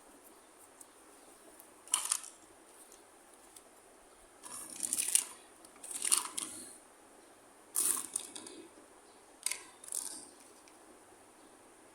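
Small plastic toy pieces and their packaging being handled, making a series of short crinkling, clicking bursts: one about two seconds in, then several more close together in the second half.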